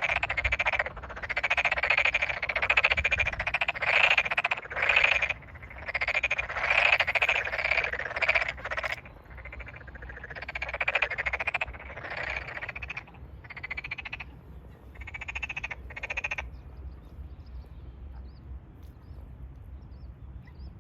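Tokyo Daruma pond frogs calling in chorus: bursts of rapid, pulsed croaks lasting a second or two each, overlapping at first, then thinning out and stopping about sixteen seconds in. A breeding chorus in a newly flooded rice paddy.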